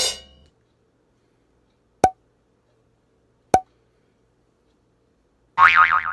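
Library sound effects played one after another: a crash fading away at the start, two single sharp knocks about a second and a half apart, then a tone wobbling quickly up and down near the end.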